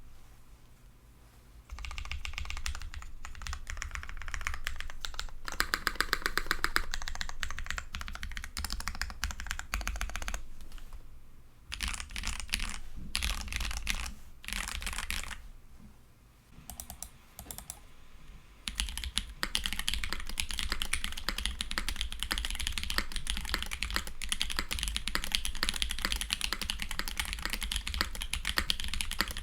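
Typing on a Polaris custom mechanical keyboard fitted with Holy Panda tactile switches: runs of rapid key clicks with short pauses. Steady continuous typing from about 19 s on.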